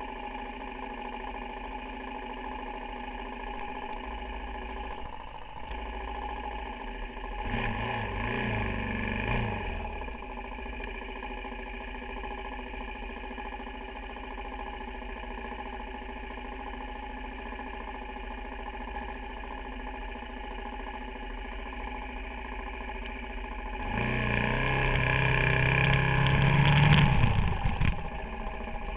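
Suzuki DR-Z400SM's single-cylinder four-stroke engine idling steadily, its revs rising and falling briefly about eight seconds in and again for a few seconds near the end.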